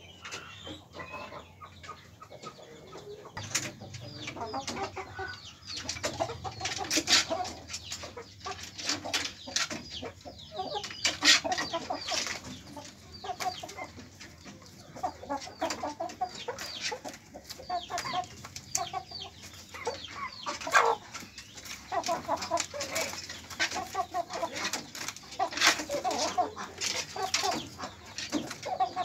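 Birkok chickens clucking repeatedly in their cages, with scattered sharp clicks and knocks among the calls. It is quieter for the first few seconds, then the clucking picks up.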